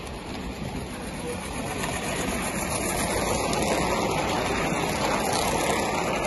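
Gauge 1 live-steam goods train rolling past close by: a steady rushing noise of the wagons running on the rails that grows louder as they go by, with light rapid ticking near the end.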